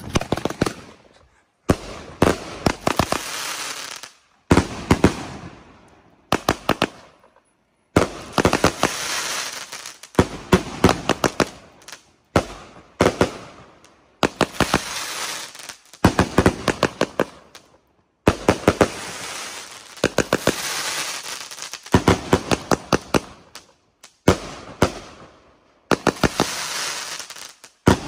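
Zeppelin consumer firework cake firing one shot after another, roughly every two seconds; each shot is a cluster of sharp pops and crackling from the gold crackle bursts, fading before the next.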